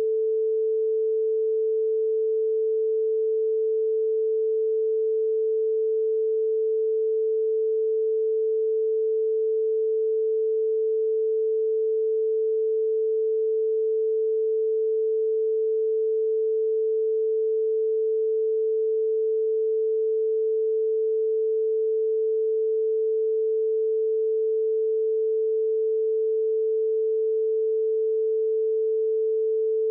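A steady pure tone at one unchanging pitch, unbroken throughout: a censorship tone laid over a redacted stretch of the recording in place of the speech.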